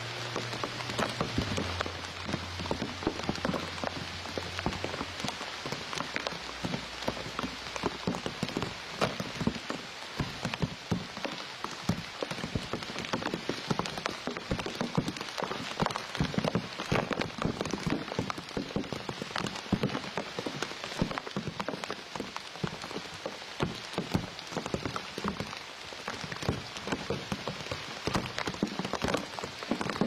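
Steady rain falling on leaves and reeds, with many close, quick drop hits.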